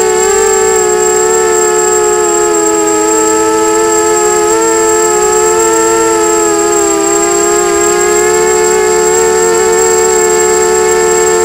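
Brushless motors and propellers of a 250-size FPV racing quadcopter whining in flight, heard from its onboard camera: several close pitches that waver and drift slightly together with throttle, over a thin steady high tone.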